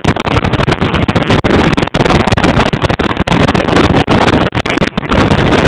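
Wind buffeting the phone's microphone: a loud, choppy rushing noise with brief dropouts.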